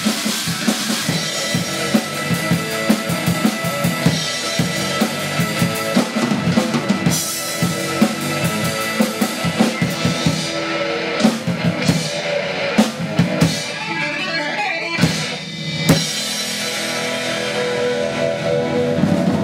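Acoustic drum kit (bass drum, snare, toms and cymbals) played along with a rock recording that has electric guitar. Busy drumming runs for the first ten seconds or so, then gives way to a few big spaced accents, and near the end the band holds a ringing chord with only occasional hits.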